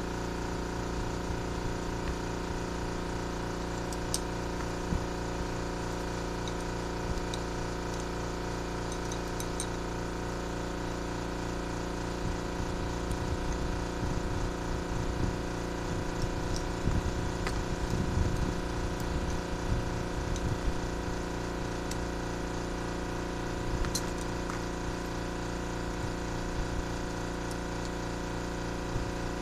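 A steady motor hum with several constant tones, over which hand tools and spark plugs are handled on a cardboard-covered bench: light metal clicks now and then, and a busier stretch of knocks and scraping in the middle.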